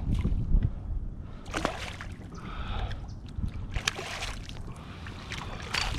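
Water splashing and sloshing at the side of a kayak as a hooked redfish is drawn in, with several short sharp splashes scattered through.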